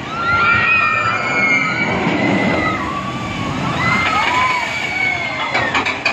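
Riders screaming together as a water-ride car plunges down a drop into a pool, with a rush of splashing water about two seconds in and more screams after it.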